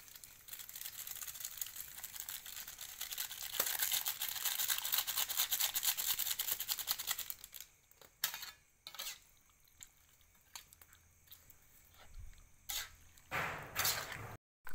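A spatula stirring and scraping in a metal wok of simmering broth: a fast, continuous scratching for several seconds that stops at about the halfway point, followed by a few scattered clicks and knocks.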